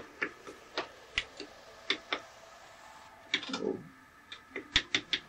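Sharp metal clicks and clacks from a G56 six-speed manual transmission's synchronizer sleeve and gears, worked by hand back towards neutral on the bare gear stack. There are about a dozen irregular clicks. The synchronizer is sticking, a little jammed.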